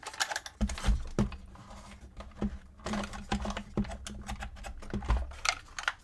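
Wooden puzzle box being handled and turned over: irregular light clicks, taps and rattles of its wooden parts, with a couple of heavier knocks about a second in and near the end.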